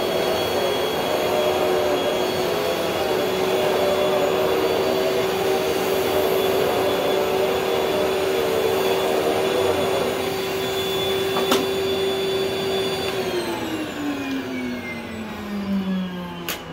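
Rainbow water-filter vacuum cleaner running steadily with a constant whine while vacuuming through its clear visualizer attachment. About thirteen seconds in, the motor winds down in a falling whine. A click comes shortly before the wind-down and a few more come near the end.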